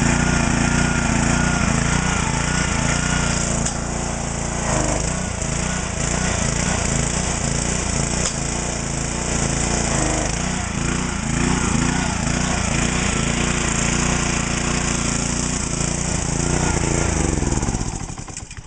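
Excell 2500 pressure washer's small Honda petrol engine running steadily under pump load, its pitch shifting now and then. The spray spits hard and then dribbles because grit is clogging the wand's nozzle tip. The engine sound dies away near the end.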